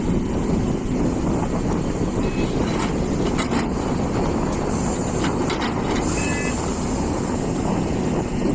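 Hitachi EX450 hydraulic excavator's diesel engine running steadily while digging, with a few faint knocks about three and a half seconds in.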